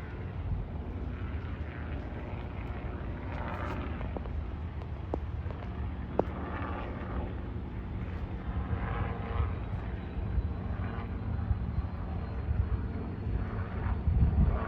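Helicopter running with a steady low rumble, and a faint high tone that climbs slowly in pitch over the second half.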